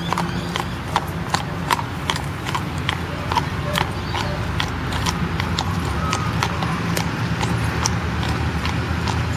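A shod horse's hooves clip-clopping on a hard surface as it is walked, about three hoofbeats a second at an even pace, over a steady low background rumble.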